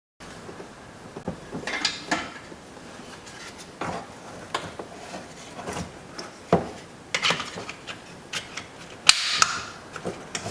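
Screwdriver and screws clicking and knocking against a car's plastic interior door panel as the panel screws go back in, sped up. Scattered sharp clicks, with the loudest knock just after nine seconds.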